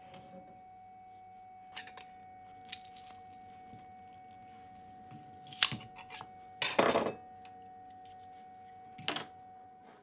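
Metal scraper blade prying a 3D-printed plastic disc off the build plate: scattered clicks and scrapes, a sharp click a little past halfway and a short scraping burst just after, which is the loudest part, then another brief scrape near the end. A steady faint hum runs underneath.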